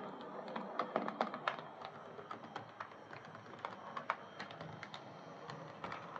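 Irregular light clicks and taps of a Hornby Class 14xx OO gauge model tank engine on the layout's track, with a faint steady hiss underneath; the sharpest clicks come about a second in.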